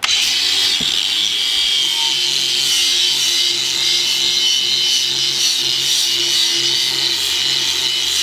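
Power sander grinding on a metal chainplate with coarse 80-grit paper, the first step before polishing. It starts abruptly and runs steadily, a loud grinding hiss over a steady motor hum.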